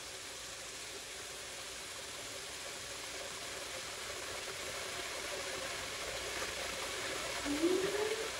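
A pan of bún bò Huế seasoning base (fried shallot and garlic with broth, chili saté, fish sauce and MSG) simmering and sizzling on the stove, a steady hiss that slowly grows louder. A short rising tone sounds near the end.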